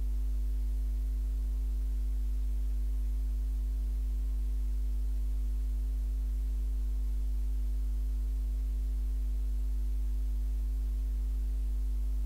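Steady low electrical hum with a stack of overtones and a faint hiss, unchanging throughout: mains hum picked up by the recording microphone or sound card.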